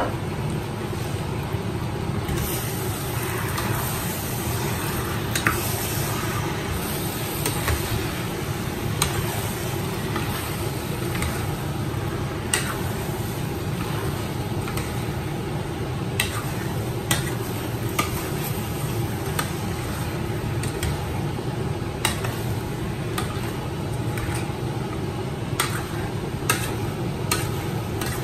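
A metal spoon stirring chunks of marinated mutton in a stainless steel pot, with sharp irregular scrapes and knocks against the pot every second or two. A steady low hum and hiss run underneath.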